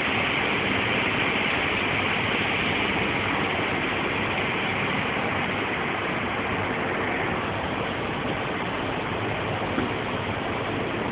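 Industrial laundry machinery of a mechanised bed-roll washing plant running with a steady noise and a faint low hum. The higher hiss eases about seven seconds in.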